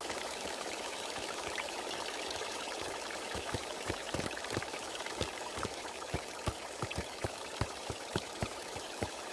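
Steady running water with a continuous hiss, and scattered small drips joining in from about three seconds in.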